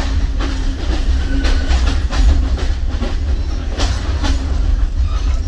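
Train running along the track, heard from on board: a steady low rumble with irregular clicks and clacks of the wheels over the rail joints.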